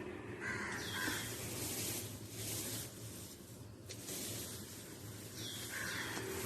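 Bird calls, twice: once about half a second in and again near the end. Swishing, rustling noise runs in between.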